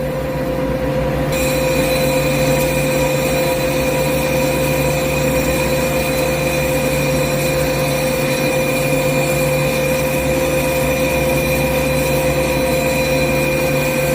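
CNC lathe running and machining, a steady mechanical whine over a continuous cutting noise, with a higher whine joining about a second in.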